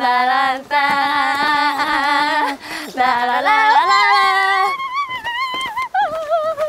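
Two women singing their own wordless entrance fanfare, held notes with vibrato that step upward in pitch, then breaking into excited whooping 'waaah' shouts about five seconds in.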